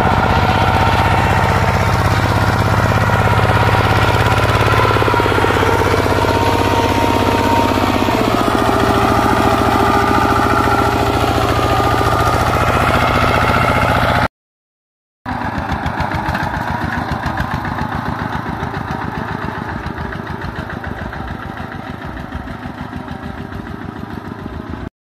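Single-cylinder diesel engine of a Kubota two-wheel walking tractor running steadily under load as it drags a spring-tine levelling harrow through dry soil. After a short break about halfway through, a single-cylinder engine chugs in an even beat that slowly gets quieter.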